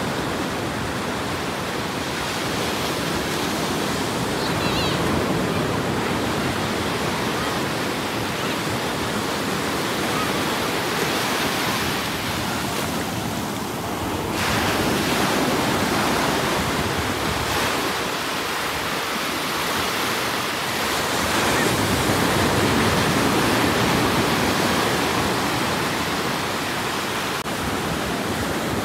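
Ocean surf breaking and washing up a sandy shore: a steady rush of waves that swells and eases every several seconds.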